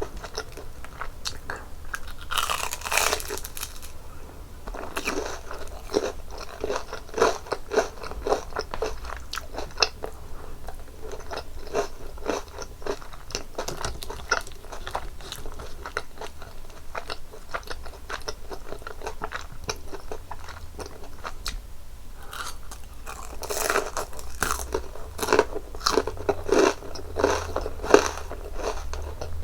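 Close-miked crunching and chewing of a crispy breaded cheese pork cutlet, the fried crust crackling with each bite. The crunching is loudest in a burst a couple of seconds in and again over the last several seconds.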